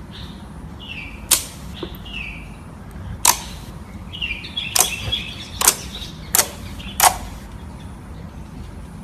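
Slime being squeezed and stretched, giving off sharp wet pops and clicks, six in all, with short high falling squeaks in the first couple of seconds.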